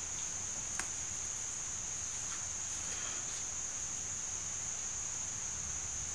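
Steady high-pitched insect trill, unbroken, with a single faint click about a second in.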